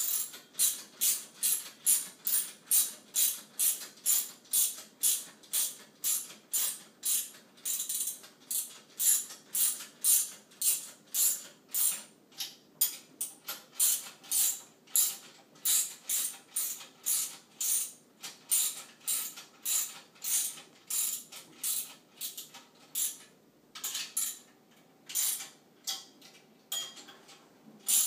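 Socket ratchet wrench tightening 10 mm locking nuts on a steering wheel hub kit: a steady run of quick clicking ratchet strokes, about two to three a second, with a couple of brief pauses near the end.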